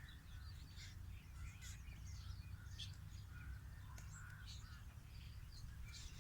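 Birds chirping and calling repeatedly in short notes, faint, over a steady low rumble.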